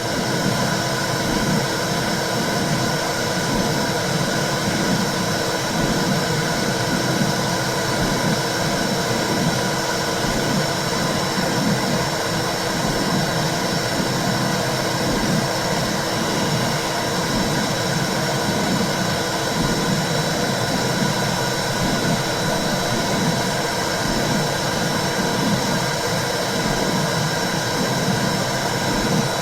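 Womb sound for calming babies: a steady rushing hiss with a rhythmic low whooshing pulse, imitating blood flow heard inside the uterus, with a thin steady high tone above it.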